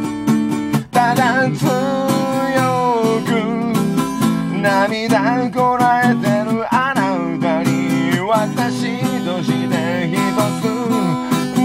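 Music: a song with strummed acoustic guitar, a steady beat and a gliding melody line, the arrangement filling out about a second in.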